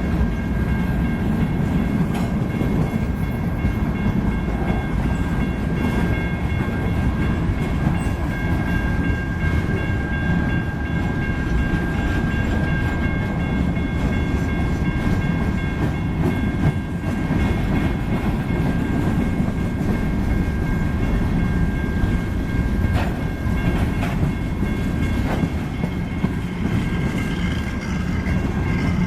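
Freight train cars rolling past: a steady low rumble of wheels on rail, with a few sharp clacks over rail joints and a thin, steady high-pitched whine.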